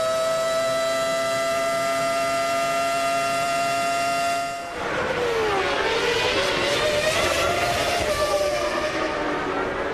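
Formula One 3.0-litre V10 engines racing on a wet track. One engine is held at high revs with its note creeping slowly upward. About five seconds in, the sound changes suddenly to cars braking and downshifting, their pitch dropping and then climbing again under acceleration, over a rushing hiss.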